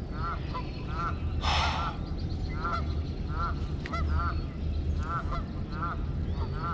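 Geese honking over and over, short arched honks a couple of times a second, with a brief rush of noise about a second and a half in.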